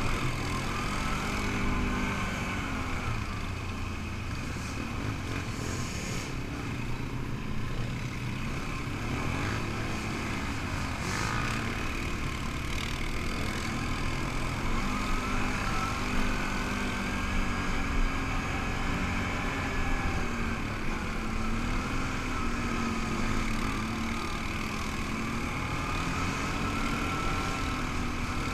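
ATV engine running under way on a dirt trail, its pitch rising and falling with the throttle, with a higher whine that wavers along with it.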